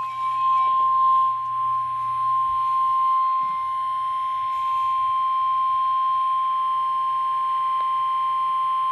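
NOAA Weather Radio 1050 Hz warning alert tone: a single steady, high-pitched pure tone held unbroken. It announces the Severe Thunderstorm Watch broadcast that follows.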